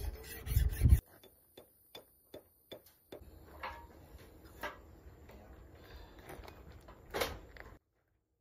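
A hand file rasping in quick strokes across a flanged bushing held in a vise, about a second long. Then come scattered light clicks and a few dull taps of a rubber mallet as the bushing is worked into the boom's gooseneck fitting, with the loudest tap near the end.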